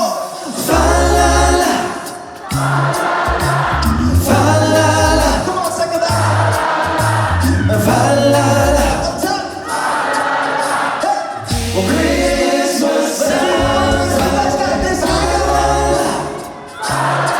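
Male a cappella vocal group singing close harmony over a sung bass line that steps from note to note about once a second.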